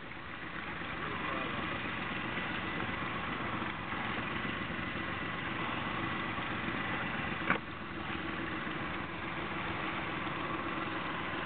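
Boat engine idling steadily, with a single sharp click about seven and a half seconds in.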